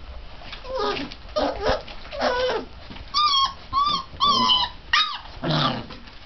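34-day-old mastiff puppies vocalising while play-fighting. Low grumbling comes first, then a run of about five short, high-pitched yips and squeals from about three seconds in, and a lower cry near the end.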